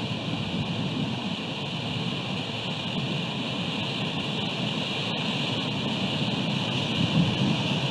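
Steady rain and wind buffeting an outdoor nest-camera microphone: an even hiss over a low rumble that swells briefly near the end.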